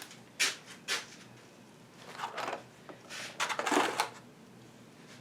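Handling noise from brake booster parts being picked up and shown: two sharp clicks early on, then bursts of rustling and scraping.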